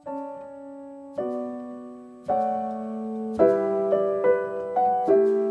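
Soft solo piano background music: single notes and chords struck about once a second, each left to ring and fade, with quicker strikes in the second half.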